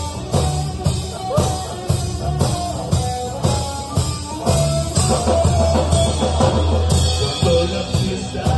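Live blues-rock trio playing: electric guitar, bass guitar and drum kit, with a steady drum beat under a melodic guitar line.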